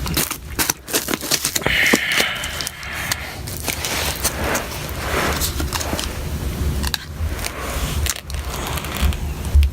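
Crackling and scraping of an adhesive warning label being pried up and peeled off a laptop battery area, with many small irregular clicks.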